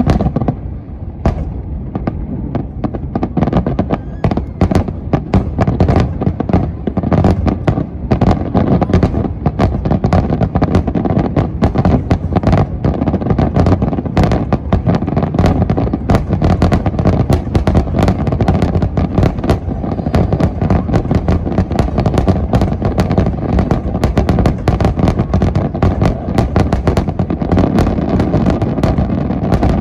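Fireworks display in a dense barrage: shells bursting several times a second over a constant deep rumble, with sharp cracks among the booms.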